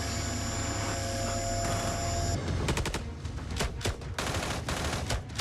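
A steady low hum with thin high steady tones, then about halfway in a rapid, irregular volley of gunshots that goes on to the end.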